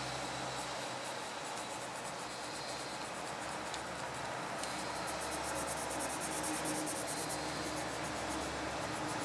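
Coloured pencil hatching on paper: a fast, scratchy run of short strokes, steady throughout.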